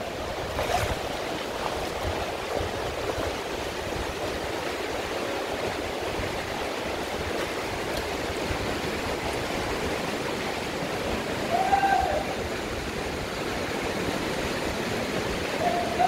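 Shallow mountain river flowing over rocks and stones: a steady rush of running water.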